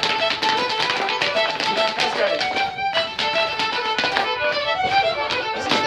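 Fiddle playing a traditional dance tune for rapper sword dancing, with short knocks of the dancers' shoes stepping on the paving.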